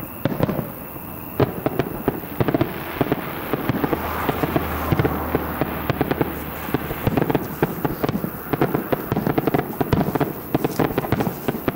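Aerial firework shells bursting in quick, irregular succession: a dense series of bangs and cracks, several a second.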